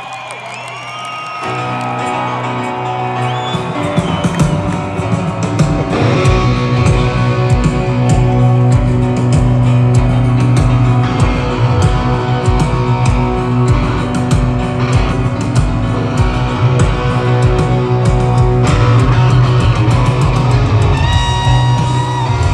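Live rock band: a lead electric guitar plays bending, gliding notes over piano, bass and drums. The sound swells over the first few seconds as the drums and bass come in, then holds loud.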